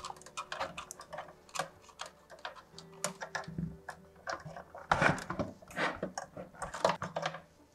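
Irregular light clicks and taps of connectors and wiring being handled as the backup battery leads are pushed onto the battery terminals of an alarm panel, with a few louder clacks in the second half.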